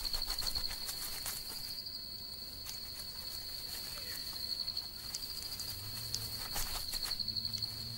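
An insect trilling steadily at one high pitch, with scattered faint clicks and rustles over it.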